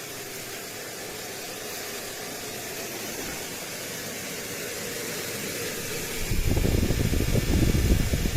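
Shark TurboBlade bladeless tower fan running with a steady airy hiss that slowly grows louder. About six seconds in, its airflow begins buffeting the microphone with a loud, uneven low rumble.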